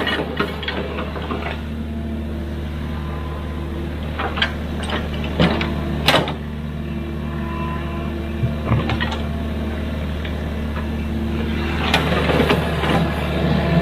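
A large excavator's diesel engine runs steadily, with scattered sharp knocks and clanks over it. The knocks are heaviest about six seconds in and again near the end.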